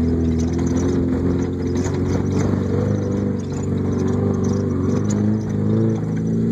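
Subaru Impreza's flat-four boxer engine heard from inside the cabin while driving, the revs rising and dipping, with a few light knocks and rattles.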